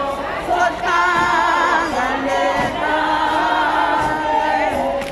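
Choir singing live, several voices together holding long notes with a wavering pitch.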